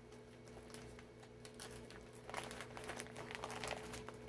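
Faint crinkling and rustling of packaging being handled and pulled open, getting busier about halfway through, over a steady low electrical hum.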